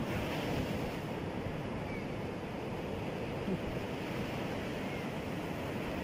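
Ocean surf breaking and washing up on a sandy beach, a steady rushing wash of waves, with some wind noise on the microphone.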